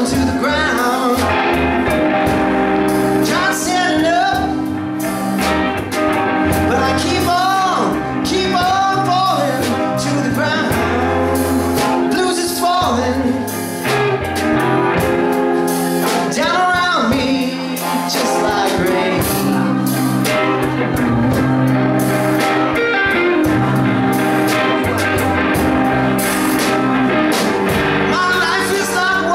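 A live blues band playing: electric guitars, keyboard, bass guitar and a drum kit, with bending lead lines over a steady beat.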